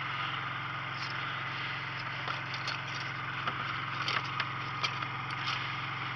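Steady low hum of a motor running on the boat, with scattered light clicks and knocks as bowfishing arrows are handled against the boat's console.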